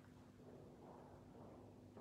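Near silence: quiet church room tone with a faint steady hum.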